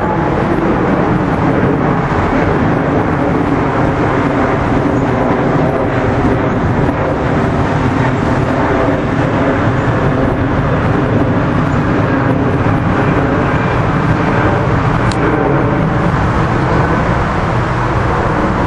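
Jet noise from a departing Emirates Airbus A380's four turbofan engines as the airliner climbs away: a loud, steady rumble with a low drone of engine tones.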